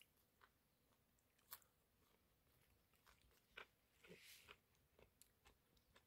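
Faint sounds of a man chewing a mouthful of kimbap wrapped in a wild-green leaf: scattered small wet mouth clicks and smacks, the sharpest about a second and a half in, with a brief hiss a little after four seconds.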